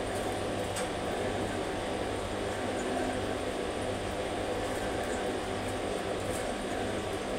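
Steady background hum and hiss with no distinct event, like a fan or air conditioner running in the room.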